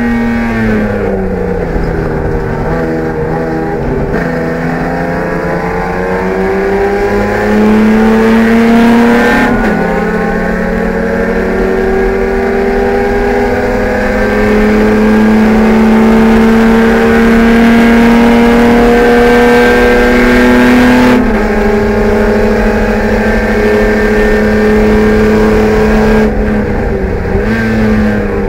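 BMW E30 race car's engine, heard from inside the cockpit, pulling hard under racing load. The pitch dips in the first second and then climbs slowly, drops sharply at a gear change about ten seconds in, drops again around twenty-one seconds, and falls off near the end as the throttle comes off.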